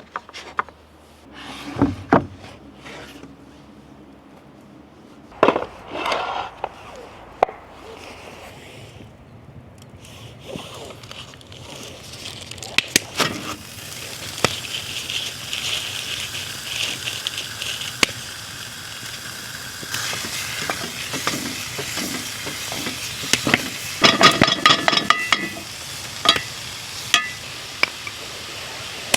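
Food frying in a cast iron pan over an open fire, with knocks and clinks of a utensil against the pan. The sizzle builds up from about a third of the way in. Near the end comes a louder run of metallic clatter.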